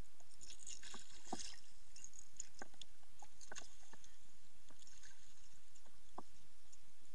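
Small waves lapping and slapping against a kayak's hull right by the microphone: irregular little splashes and clicks, thickest about a second in.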